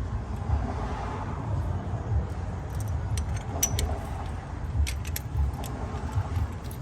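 Scattered light metallic clicks and clinks as the die and locking pin of an AC hose crimper are handled and fitted, most of them between about three and five and a half seconds in, over a steady low rumble.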